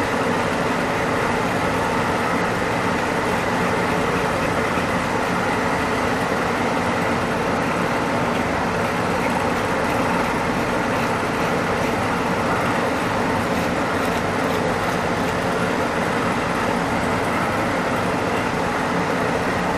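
Steady rushing noise of an electric blower or fan running without a break, with a constant hum.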